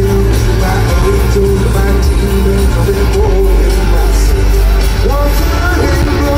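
Loud live band music in an arena, recorded from the crowd: a deep steady bass under a voice singing a bending melody over guitar and keys.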